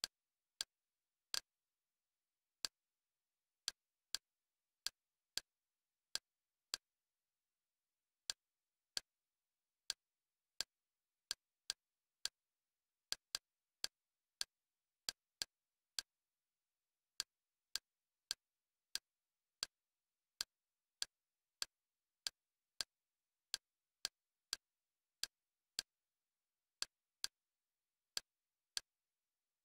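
Kodi menu navigation sound effect: short sharp clicks, one for each step through the menu, coming at uneven spacing about one to two a second with a short pause about seven seconds in, and silence between them.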